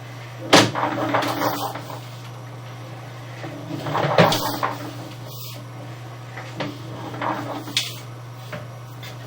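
Irregular knocks and short clatters over a steady low hum, as of a sewer inspection camera and its push cable being worked through a drain pipe. The louder clusters come near the start and around the middle.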